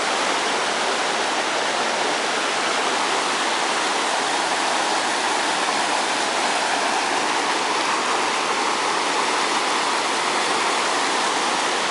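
Floodwater of a swollen creek rushing steadily over a washed-out trail, a constant loud roar of fast-moving water.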